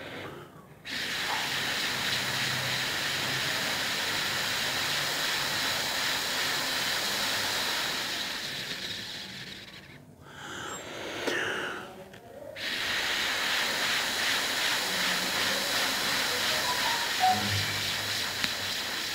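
Steady hiss of breath blown hard through a short plastic tube, the air jet holding a pea floating above its end. Two long blows with a short break for breath about ten seconds in.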